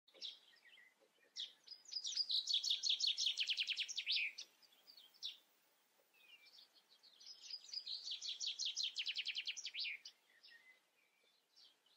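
A songbird singing two song phrases, one about a second and a half in and another about seven seconds in. Each phrase is a fast run of notes that drops in pitch at its end, with a few faint chirps in between.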